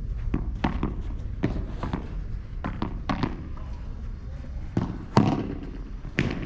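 Padel balls being struck with padel rackets and bouncing on the court: a string of sharp pops at irregular spacing, the loudest about five seconds in.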